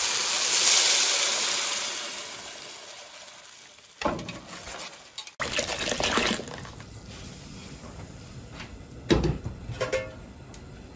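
Blended chile sauce hitting hot oil in a clay cazuela: a loud sizzle that fades over the first few seconds. Then the sauce splashes in as it is poured from a glass blender jar, with a couple of knocks near the end.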